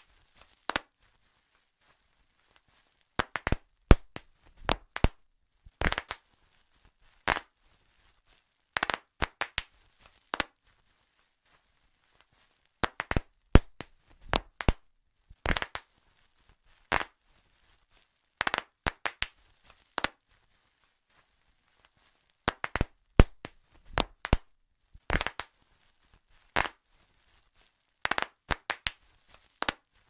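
Bubble wrap being popped: sharp pops, singly and in quick clusters, at irregular intervals with short pauses between.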